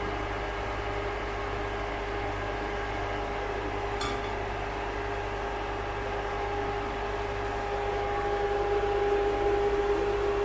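Kitchen range hood fan running with a steady hum and whine. There is a single light clink about four seconds in, and the hum grows a little louder near the end.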